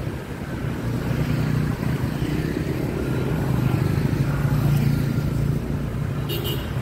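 Motorbike and scooter traffic streaming past at close range, their small engines running in a steady drone that grows louder around the middle as riders pass near. A short sharp sound comes near the end.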